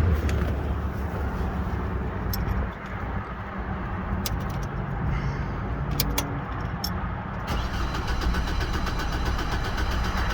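2007 Hummer H3 engine being cranked by the starter without catching, a steady pulsing churn with a few sharp clicks partway through: a no-start even after a new fuel pump relay.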